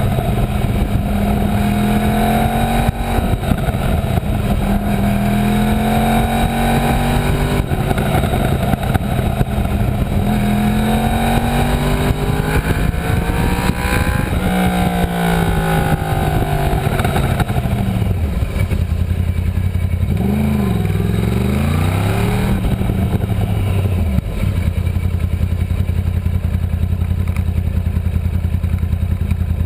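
Stock Yamaha R1 (RN22) crossplane inline-four engine running hard, its pitch climbing and falling again and again. About eighteen seconds in the revs fall away, with a couple of quick blips. For the last seven seconds it holds a steady low note.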